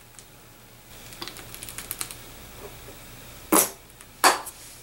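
Plastic bottles being handled: a run of light clicks and taps, then two sharp plastic clicks about 0.7 s apart near the end.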